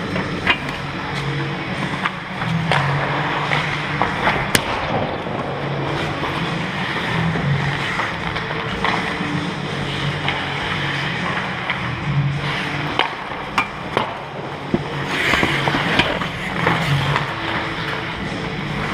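Ice hockey skates scraping and carving on the ice close to the goal, with sharp clacks of sticks on the ice and puck every few seconds.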